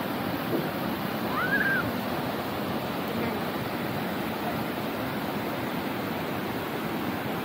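Steady rushing of a large waterfall and its rocky cascades, Kegon Falls. About a second and a half in, a single short high call rises and falls over it.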